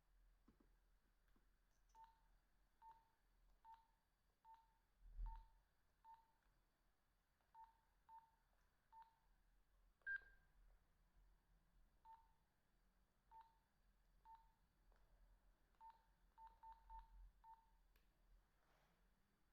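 Nokia 2110i keypad beeps as its buttons are pressed to step through the menu: short beeps at one pitch, roughly one a second, with a quick run of presses near the end. About ten seconds in comes one higher, louder beep, and about five seconds in a low thump.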